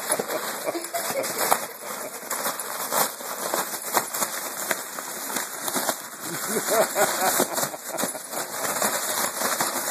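A small dog scrabbling at and biting a balloon on a tiled floor: rapid, irregular clicks, scratches and rubbing from its claws and teeth on the balloon and the tiles.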